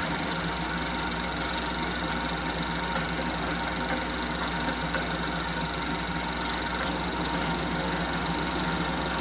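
Telex 16mm sound film projector running: a steady mechanical whir of its motor and film transport, with a steady hum under it.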